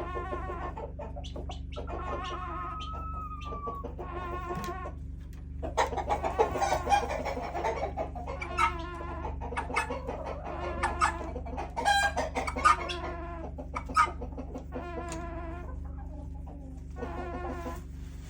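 Backyard chickens making drawn-out, warbling calls, with clucks between them. From about six to fourteen seconds in, the calling grows louder and busier, with sharp clucks overlapping. A steady low hum sits underneath.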